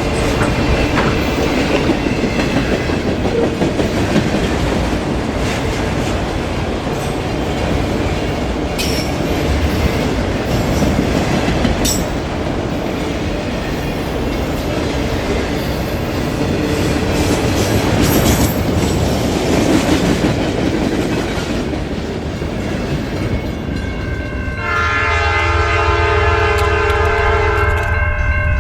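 Freight train rolling past with a steady clatter of wheels on the rails. About twenty-five seconds in, a locomotive's multi-note air horn sounds and holds.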